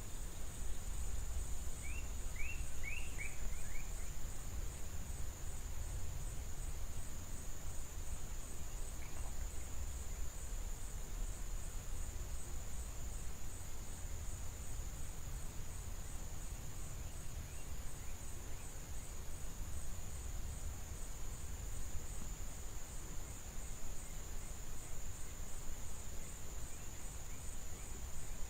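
Insects trilling steadily at a high pitch, with a brief run of quick bird chirps about two to four seconds in, over a low rumble.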